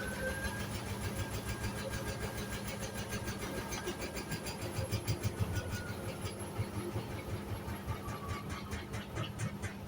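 Hoover Sudslock washing machine running: a steady motor whine that finishes rising in the first second, over a low hum and a rapid, even, rhythmic clatter.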